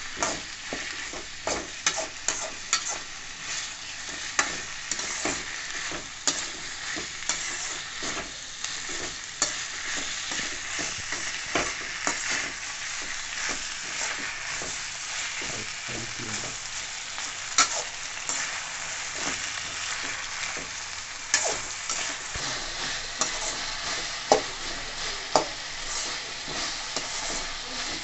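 Sliced onions, tomatoes and dried red chillies sizzling steadily as they sauté in oil in a stainless steel kadai, while a metal slotted ladle stirs them, scraping and clinking against the pan. A few louder knocks of the ladle come in the second half.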